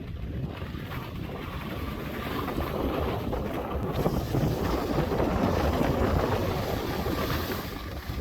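Wind gusting across the microphone: a rushing noise that swells about three seconds in and eases near the end.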